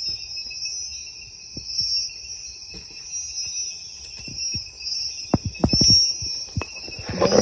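Steady high insect chorus of crickets with a fast trill. A few dull knocks come through it, in a quick run about three-quarters of the way in.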